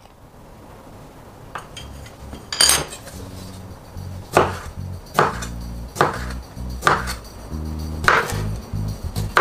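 Chinese cleaver chopping a pickled gherkin on a wooden cutting board: slow, even knocks of the blade on the wood, about one a second from around four seconds in, after a couple of lighter knocks.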